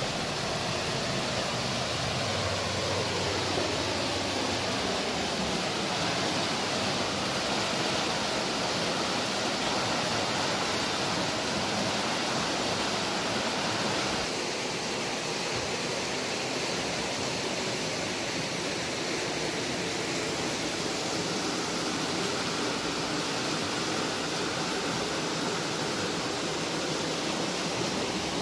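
River water rushing over rocks and small rapids: a steady, even hiss of flowing water.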